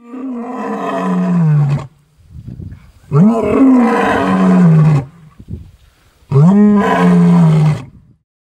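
A big cat roaring three times, each roar a long loud call that drops in pitch at its end, with softer low sounds between the roars.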